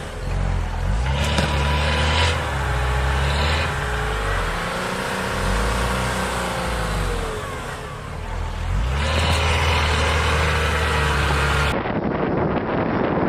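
An off-road 4x4's engine revving hard under load, its pitch rising and falling, with two louder surges of revs. Near the end it cuts to a different, noisier recording.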